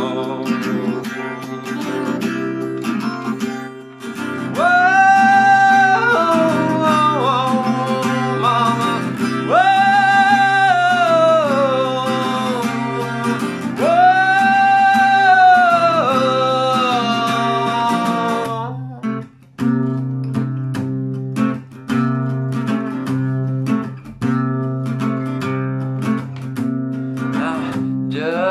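A man singing a song while accompanying himself on acoustic guitar. The voice holds long sung lines, then drops out about two-thirds of the way through, leaving the guitar playing on alone.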